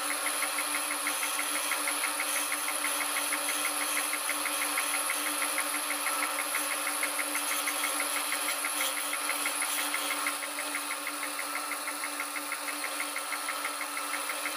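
Wood lathe running with a steady hum and a fast, even ticking while a hand tool cuts the spinning wood blank. The sound drops a little about two-thirds of the way through.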